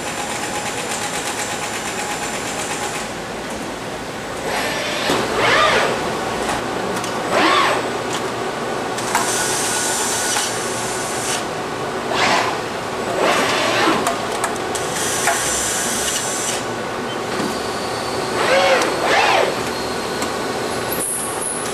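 Fanuc industrial robot arms at work in an assembly cell: servo motors whining up and down in pitch with each arm move, over a steady hum of running machinery. Two bursts of compressed-air hiss come about a third and about two thirds of the way through.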